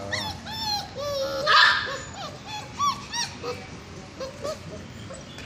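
Golden retriever puppies whining and yipping in short, high cries that rise and fall, with one louder, rougher cry about one and a half seconds in. The cries thin out after about three and a half seconds.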